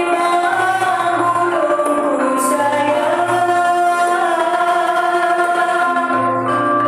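Joget gamelan music: a woman singing a long, gliding melody over gamelan metallophones and a low gong-like pulse.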